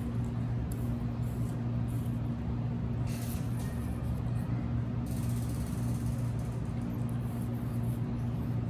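A steady low hum with an even pitch, with faint brief hissing sounds about three seconds in and again around five to six seconds.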